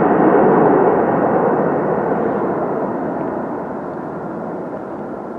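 Wide-body jet airliner's engines on the runway: a broad, rushing jet roar that fades steadily as the aircraft rolls away.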